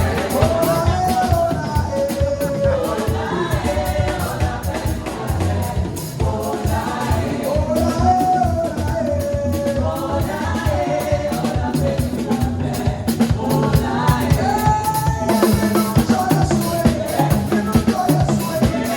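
Gospel singing by a group of voices, a sung melody with backing singers, over a band with a steady drum-kit beat.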